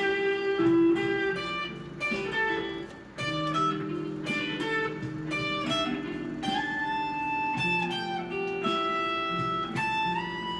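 Guitar playing a run of plucked single notes and chords, with several notes bent or slid upward in pitch, and a brief drop in sound about three seconds in.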